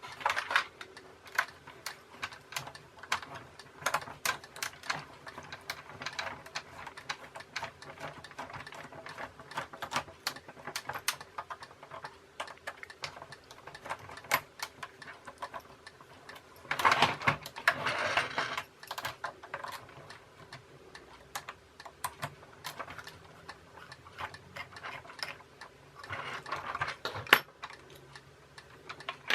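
Small plastic parts of a toy train clicking, tapping and scraping as it is unscrewed and taken apart by hand, with a denser rattling scrape about halfway through and another near the end.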